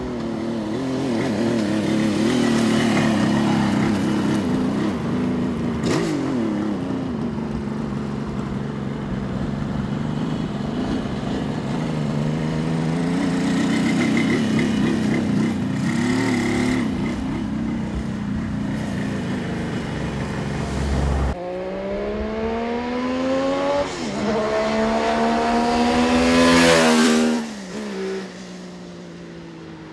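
1974 Kawasaki H2 750 Mach IV's three-cylinder two-stroke engine as the bike rides by, its pitch wavering with the throttle. After a break it accelerates hard: the revs rise, drop once, then climb again to the loudest point near the end and fall away as the bike goes past.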